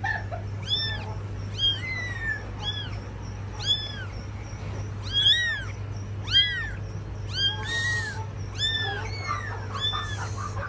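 Kittens mewing: short, high-pitched calls that rise and fall, about one a second, some overlapping near the end.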